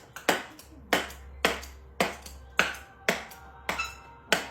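Background music with a sharp snapping beat, about two snaps a second.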